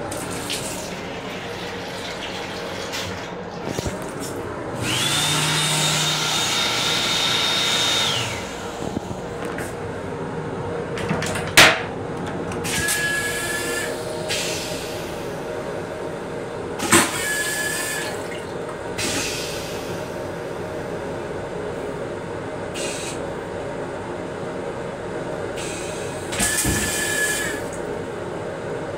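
Toilet in the restroom of a Metro-North M7 railcar flushing in stages over the steady running noise of the train: a steady whine with rushing air for about three seconds, a sharp click, then three short spurts of water with a whistling tone as rinse water swirls round the bowl.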